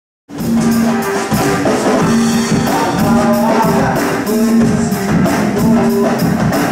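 Percussion-heavy band music that starts suddenly: drum kit and hand drums keep a steady beat under a repeated low held note and other pitched parts.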